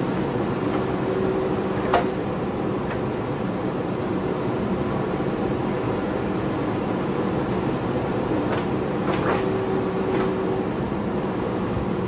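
JCB backhoe loader's diesel engine running steadily as the backhoe arm digs, dumps and swings. A sharp metallic knock comes about two seconds in, a few lighter knocks follow later on, and a higher steady tone joins in twice, briefly.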